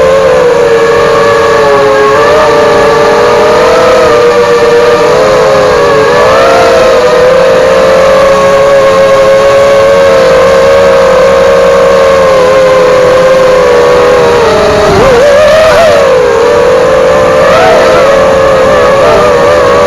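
Eachine Falcon 250 quadcopter's brushless motors and propellers whining in flight, the pitch wavering up and down with throttle changes. About fifteen seconds in there is a sudden dip in pitch and then a surge back up.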